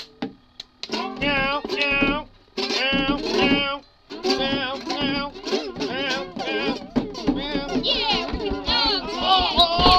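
Music: voices singing long, wavering notes in phrases, with short breaks about 2.5 and 4 seconds in.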